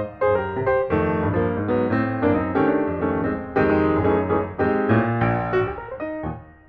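Background piano music, a running line of notes and chords with a brief pause near the end.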